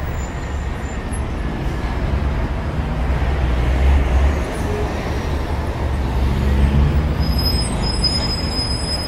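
Road traffic: a steady low rumble of passing vehicles that swells about four and again about seven seconds in, with a thin high squeal near the end.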